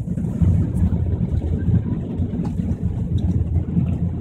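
Airbus A380 cabin noise during the takeoff roll: a loud, steady low rumble of engines and runway.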